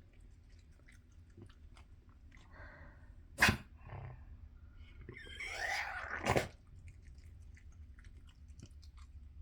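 A dog coughing: twice, about three and a half and six and a half seconds in, a breathy, wheezing build-up ends in a sharp, loud hack.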